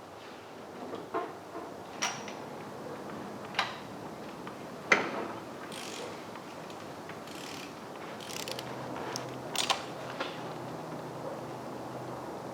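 Scattered metallic clicks, knocks and short scrapes of hands and tools working on an ultralight aircraft's engine, with a faint low hum coming in near the end.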